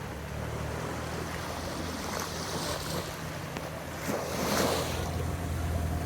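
Water splashing and washing in waves, swelling louder a few times, with wind rumbling on the microphone.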